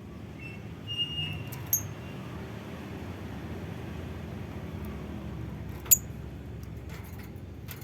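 A lovebird giving a few very short, sharp, high chips: a faint one about a second in, a louder one near two seconds, the loudest about six seconds in. Under them runs a steady low rumble.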